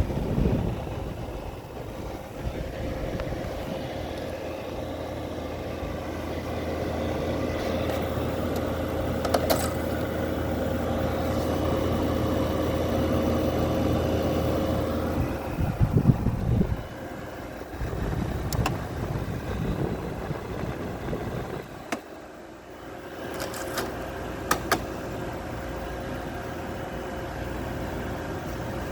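Midea 5,000 BTU window air conditioner running with a steady hum and a constant whine, broken by a few sharp clicks. Its low hum fades about a second after a brief louder rumble around 16 s.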